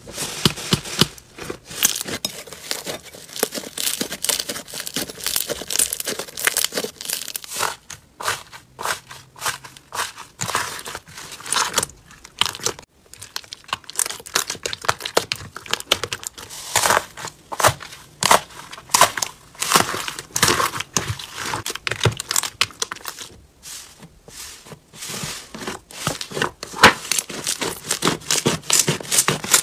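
Hands squishing, pressing and stretching slime, giving a dense, irregular crackling and popping.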